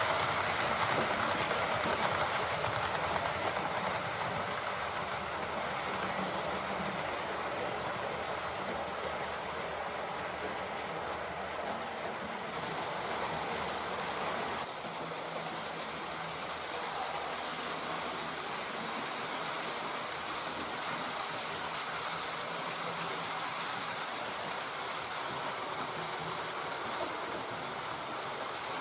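H0-scale model train running along the layout track: a steady rolling noise of wheels on rails with a low motor hum, dropping slightly in level about halfway through.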